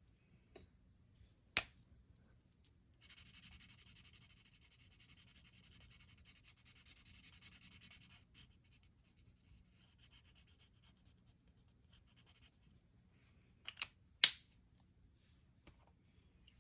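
Colouring strokes on paper: a fast, steady back-and-forth scratching that fades away after a few seconds, with a single sharp click before it and two more clicks near the end.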